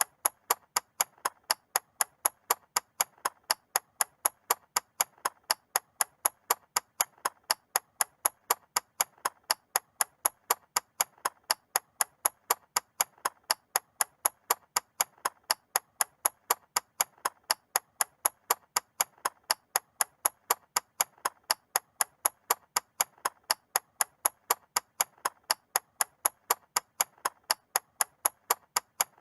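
Mechanical clock ticking steadily, about two crisp ticks a second.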